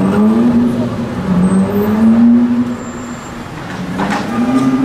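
Lamborghini Murcielago LP670-4 SV's naturally aspirated V12 accelerating away, its engine note climbing in pitch and then fading about three seconds in. Near the end, another engine's note rises as it picks up speed.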